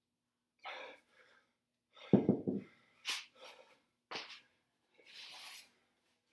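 A 35 lb kettlebell set down on a concrete floor with a dull thud about two seconds in, among short, sharp breaths after a set of presses to failure. A brief cloth rustle follows near the end.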